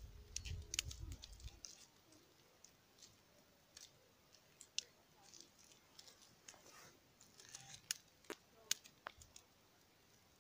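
Plastic grafting strip crinkling and ticking faintly in scattered sharp crackles as it is wound and pulled tight to bind a bridge graft on a tree trunk. A low rumble runs through the first second and a half.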